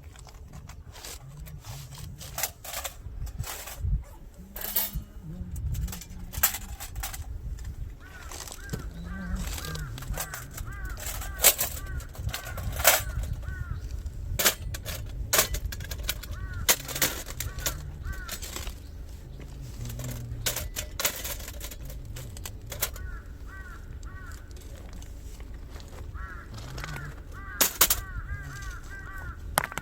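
Irregular sharp pops and clicks, with a bird's quickly repeated call in two stretches, the first about a quarter of the way in and the second near the end, over a steady low rumble.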